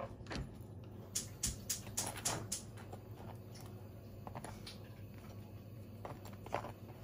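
Table knife scraping and tapping against a split baguette as butter is spread inside it: a run of short scrapes and clicks, thickest between about one and two and a half seconds in and again near the end.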